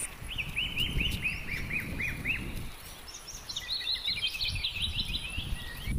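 A bird singing a quick run of about ten repeated chirping notes, then a faster, higher-pitched series of notes in the second half. Underneath runs low, uneven rustling and thumping from walking on the grassy path.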